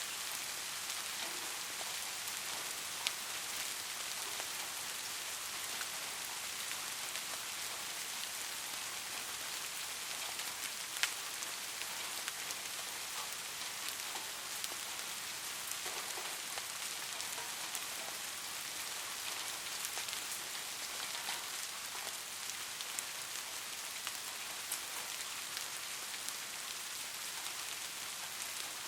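Steady rain falling, an even hiss with scattered sharp drop ticks, a few louder single drips standing out.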